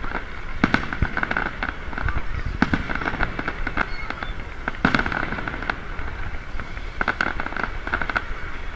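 Aerial fireworks bursting overhead: sharp bangs every second or two, with a steady crackling of the shells between them.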